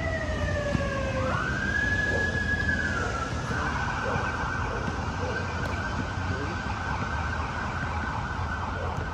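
Emergency vehicle siren: a long falling wail that ends about a second in, then rises again to a held tone and switches to a fast warbling yelp that continues, over a low rumble of traffic.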